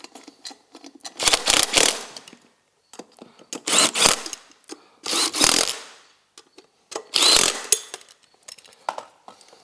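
A power tool run in four short bursts of about a second each, a second or so apart, while working on the three-wheeler's wheels.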